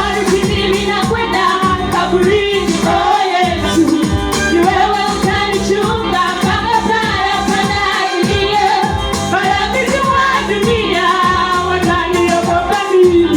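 School choir singing a gospel song over a steady percussion beat.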